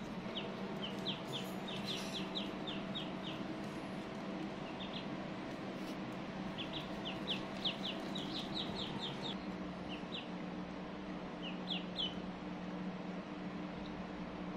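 Ducklings peeping: runs of short, high chirps, several a second, coming in a few bursts with pauses between, over a steady low hum.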